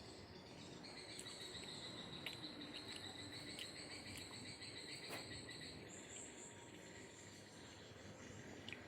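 Crickets chirring faintly: a steady high trill that starts about a second in and shifts higher about six seconds in.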